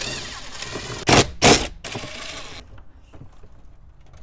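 Ridgid 18V cordless impact driver spinning out the 10 mm bolts that hold the factory radio in the dash, with a high motor whine and two short loud bursts of hammering about a second in. It stops after two and a half seconds, leaving light clicks and rattles of the loosened metal radio chassis being handled.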